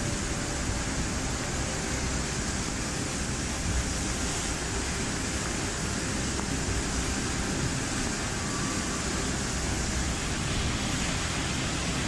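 Muddy floodwater surging through a channel in a torrent: a steady rush of water.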